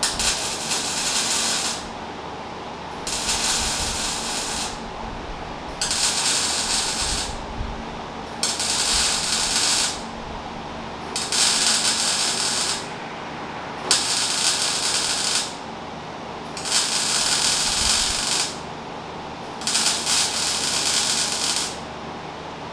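MIG welder laying short beads on a bent metal pipe: eight runs of crackling arc hiss, each about one and a half to two seconds long, with pauses of about a second between them.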